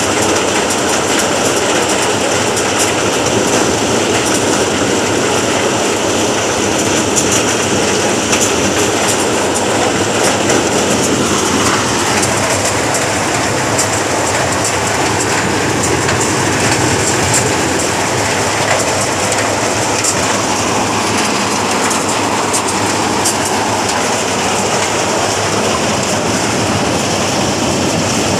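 Super Manku maize thresher running steadily and loud while it shells maize, a dense, even clatter with many fine ticks over a constant machine noise.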